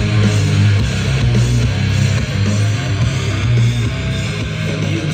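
Rock track played loud through an Eltronic 20-14 portable party speaker, heard in the room. Strong bass notes repeat under guitar.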